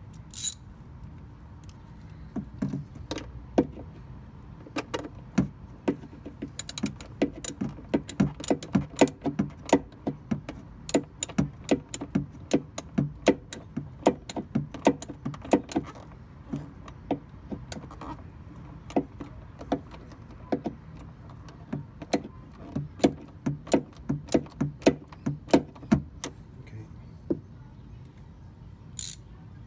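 Hand ratchet with a 10 mm socket clicking in quick runs with short pauses, as small bolts are tightened.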